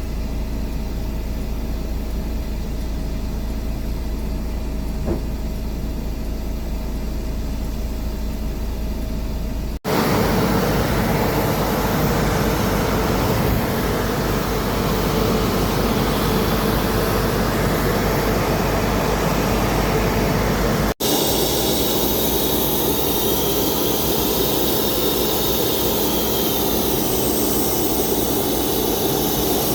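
Aircraft engine noise in three cut-together stretches: a steady low rumble, then louder engine noise from about 10 s, and from about 21 s engine noise with a high whine.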